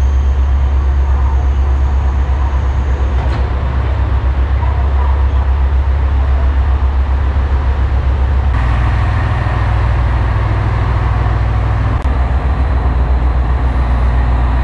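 Diesel railcar engine idling at the platform: a steady, loud low rumble with a throbbing beat, growing fuller about eight seconds in. A faint high whine sits over the first three seconds.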